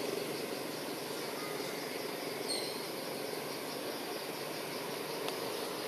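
Insects chirring steadily in a rapid pulsing rhythm, with one short high chirp about halfway through.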